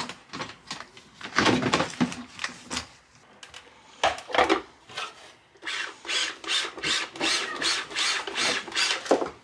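Plastic parts of a food processor being fitted together: knocks and clunks as the work bowl and S-blade are set in place, then a steady run of quick clicks, about four a second, as the bowl is worked onto the base.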